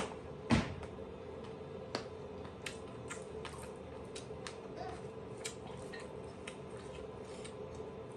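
A person eating with their fingers: chewing and mouth clicks, with scattered short sharp clicks, the two loudest right at the start and about half a second in, over a faint steady hum.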